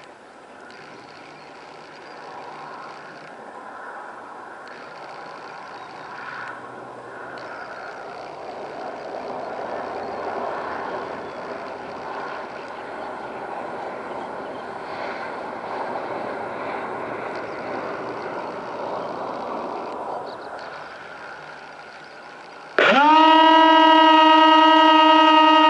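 Water rush and a faint motor hum, growing slowly louder as the remote-controlled craft moves through the water. Near the end its electric motor spins up to a loud, steady whine.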